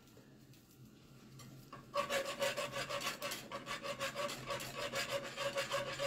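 Wire whisk beating fast against a metal saucepan with a faint metallic ring, starting about two seconds in: a flour-and-water slurry being whisked into boiling liquid to thicken it.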